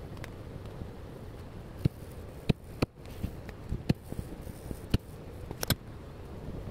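Pencil drawing on a sketchbook page: a steady low background rumble with a series of irregular sharp clicks and taps, starting about two seconds in, as the pencil meets the paper.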